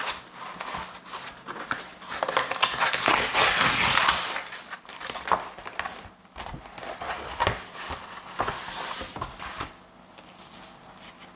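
Parcel packaging being handled and opened by hand: dense rustling and crinkling with many small clicks and scrapes, loudest in the first half and fading out near the end.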